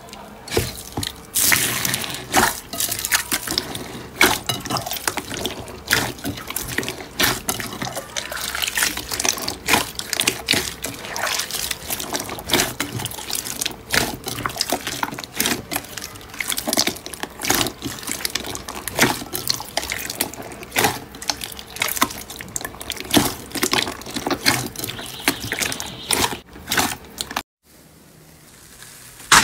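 Clear slime mixed with foam beads being poked and squeezed by hand: a dense run of wet squelches, pops and crackles. It cuts off suddenly near the end.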